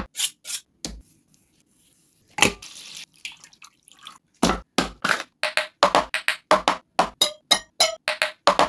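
Raw chicken leg pieces being handled and washed: a few sharp knocks, then a short splash of water with dripping about two and a half seconds in. From about four and a half seconds in, a steady beat of clinking, ringing percussion takes over, about three strokes a second.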